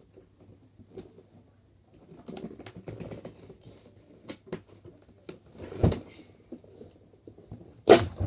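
Cardboard Nerf Elite Rampage box being handled and picked at to open it from the side: scattered rustling, scratching and small clicks, with a sharp knock about six seconds in and a louder one near the end. The box is proving hard to open.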